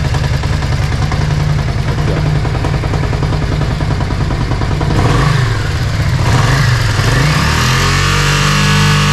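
Yamaha Virago 535's air-cooled V-twin running on choke from a cold start, with a new fuel pump fitted. It runs with an even, pulsing beat, the revs swing a little after five seconds in, and then it settles into a smoother steady idle.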